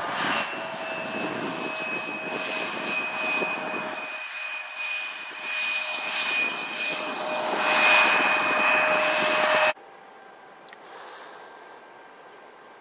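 Delta Connection CRJ-900's twin GE CF34 turbofans running with a steady high whine over jet rumble as the jet rolls down the runway after landing, louder near the end. The sound cuts off abruptly about ten seconds in, leaving a faint distant background.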